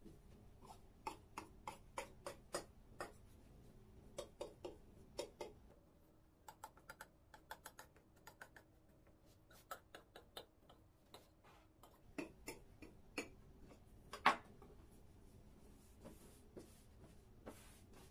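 Knife blade clicking and scraping against the rim of a round metal baking tray while trimming off overhanging phyllo dough: quick runs of sharp ticks, with one louder knock about fourteen seconds in.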